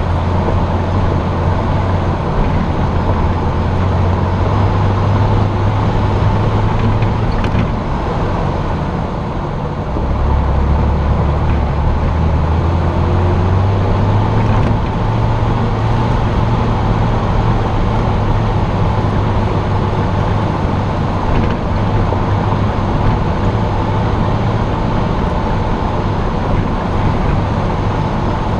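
Jeep engine running as the vehicle drives along a mountain road, heard from a camera mounted on the hood, with a steady low engine drone over road noise. Around nine seconds in the engine note eases off and the sound drops slightly, then the drone picks up again at a slightly different pitch.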